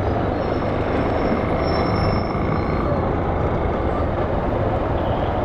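Police motorcycle riding at a steady speed: engine running evenly, mixed with a steady rush of wind noise.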